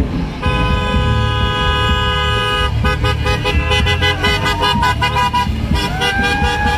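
Vehicle horns honking from a passing convoy of Jeeps, over the rumble of their engines. First one long held horn, then a quick run of short toots. Near the end a siren starts to rise.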